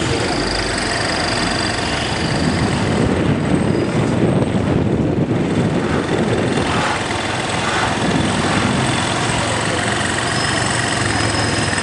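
A moving vehicle's engine running, with road noise, steady throughout.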